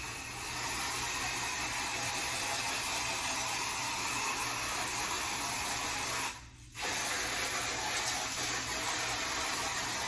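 Aerosol can of tinted lace spray hissing steadily as it is sprayed onto a wig cap, in two long sprays with a short break about six and a half seconds in.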